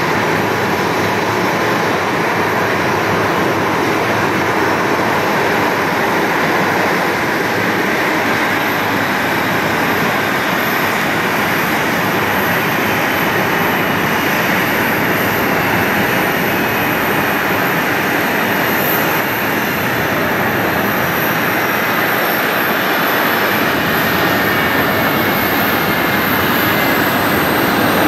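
Boeing 777-300ER's GE90-115B turbofan engines heard as the airliner lands and rolls out: a loud, steady jet noise. Over the second half a faint whine slowly falls in pitch.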